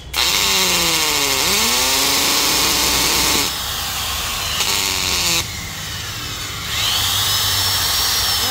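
Corded Makita hammer drill test-run with no load, its motor starting abruptly and running loud with its pitch gliding down and up. It eases off about three and a half seconds in, picks up briefly, then speeds up again near the end with a rising whine as it is tried in hammer and plain drilling modes.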